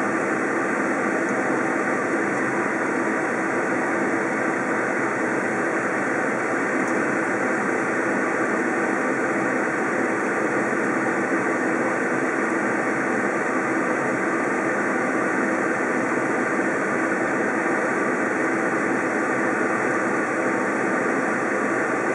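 Steady, even rushing noise of a kitchen fan running, with no rhythm or change.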